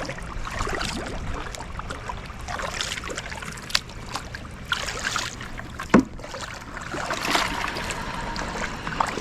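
Tandem kayak paddles dipping and pulling through the water, a swell of splashing and trickling about every two seconds, with two sharp knocks near the middle.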